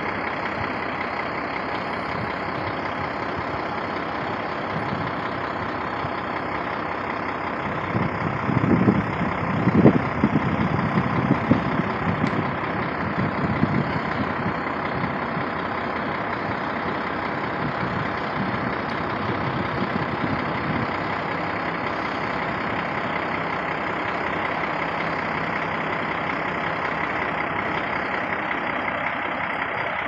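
Steady drone of an idling vehicle engine, with a louder, irregular low rumble swelling about eight seconds in and fading by about fourteen seconds.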